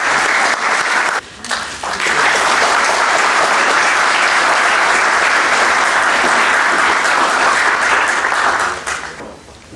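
Audience applauding steadily, with a brief drop about a second in. The clapping fades away near the end.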